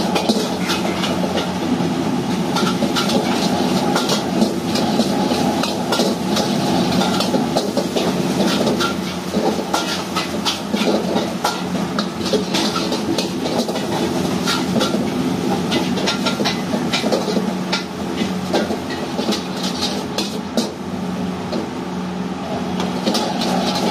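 A metal ladle clanks and scrapes repeatedly against a steel wok as rice is stir-fried. Under it runs the steady loud hum of the gas wok burner and the overhead fan.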